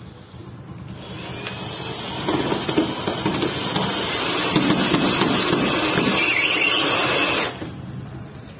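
Electric drill running under load, driving a black screw through a pine board. It starts about a second in, builds, and cuts off suddenly near the end.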